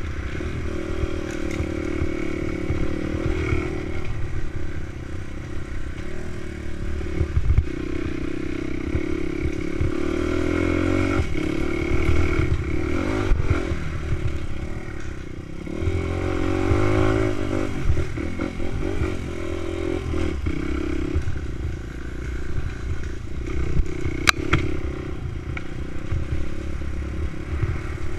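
Dirt bike engine running under load, its revs rising and falling as it rides a rocky trail, with clattering and scraping from the bike and stones.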